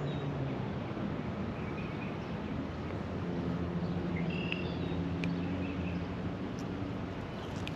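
Outdoor pondside ambience: a steady rushing noise with a low steady hum for a few seconds in the middle, faint bird chirps, and a couple of light clicks near the middle and near the end.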